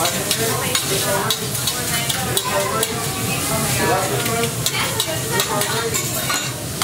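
A teppanyaki chef's metal spatula and fork chopping and scraping food on a hot steel griddle: rapid sharp clicks of metal on steel over a steady sizzle of frying.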